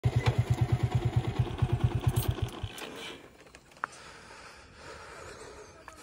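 Small engine idling with an even, rapid low thump of about eight beats a second, cut off suddenly about two and a half seconds in. A single sharp click follows about a second later, against faint outdoor background.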